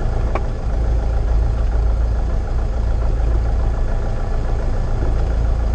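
Piston engine and propeller of a light single-engine plane running steadily at low power, a constant low drone heard up close from the engine cowling.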